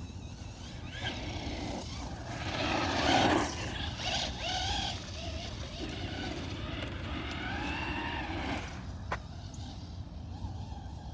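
Traxxas Rustler 4x4 VXL RC truck's brushless motor whining up and down in pitch as it accelerates and slows, with a louder rush of noise about three seconds in. A single sharp click comes near the end.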